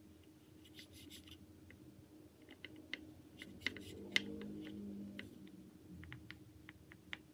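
Small knife cutting through orange segments on a miniature wooden cutting board: faint scraping and a scatter of soft clicks and ticks from the blade meeting the board, busiest about four seconds in.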